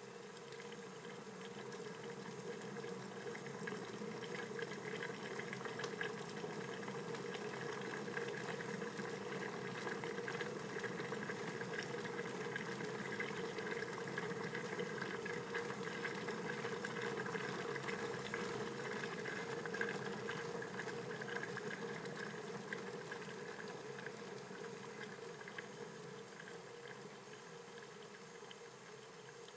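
Stainless steel electric kettle at the boil: a steady bubbling hiss of boiling water that swells over the first few seconds, holds, then eases off near the end.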